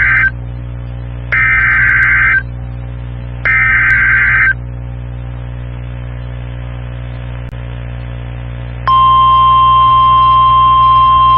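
NOAA Weather Radio Emergency Alert System signal: the SAME digital header's warbling data tones, a one-second burst repeated three times, then a pause of about four seconds over a steady hum. After that the steady 1050 Hz warning alarm tone comes in loudly near the end, announcing a severe thunderstorm warning.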